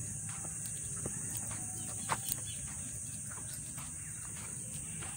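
Steady, high-pitched drone of insects in the palms, with faint footsteps on a dirt road and a few light ticks over it.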